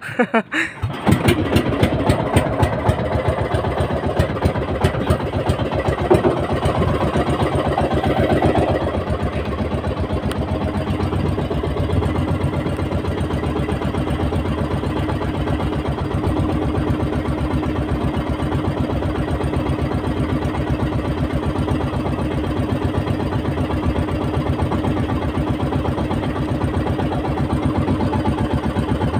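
Small fishing boat's engine starting about a second in and then running steadily, a little louder for the first several seconds before settling.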